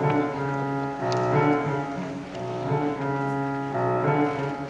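Instrumental accompaniment playing the introduction to a stage-musical song, with held chords that change about once a second.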